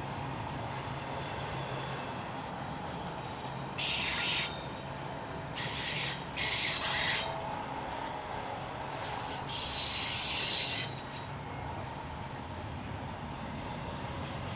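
Norfolk Southern freight train rolling past: steady rail noise with a faint hum, broken in the middle by four short, loud hissing bursts.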